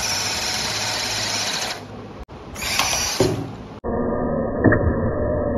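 Electric motor and gearbox of a small RC scale truck whirring steadily under load, broken by abrupt edit cuts. About four seconds in, the sound turns duller and muffled, with a few small clicks.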